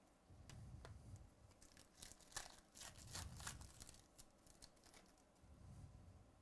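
Foil wrapper of a baseball card pack torn open and crinkled by hand: a faint run of quick crackles, densest and loudest about two to three and a half seconds in.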